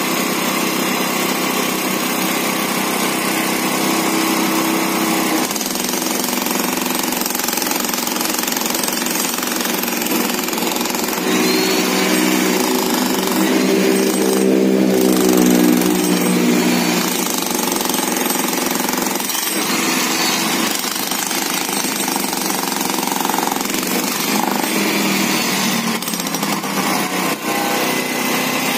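Electric jackhammer hammering continuously into a concrete pavement, breaking it up. It gets somewhat louder about halfway through.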